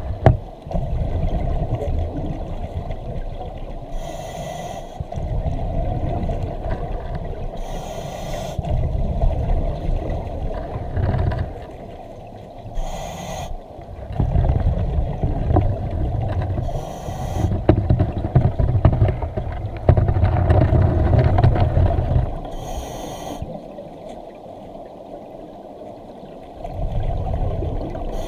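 Scuba diver breathing underwater through a vintage double-hose regulator: a short hiss of inhaled air about every four to five seconds. Between breaths there is a low rumbling that swells and fades.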